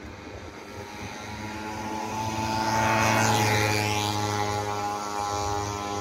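A passing engine's steady drone swells to its loudest about halfway, then fades.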